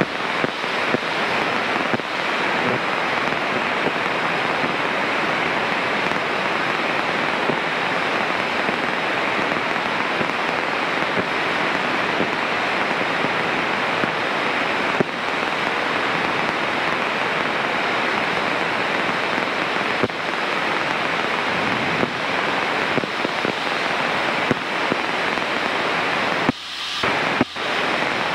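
Steady crackling static hiss of radio interference on a Cessna 152's radio audio, cutting out briefly a few times near the end.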